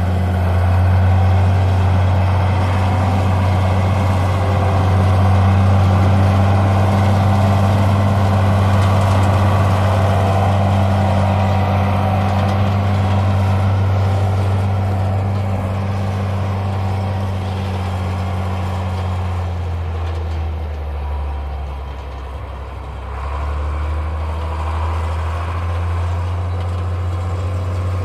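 Heavy vehicle engine running steadily while pushing packed snow. It eases off about twenty seconds in, then picks back up.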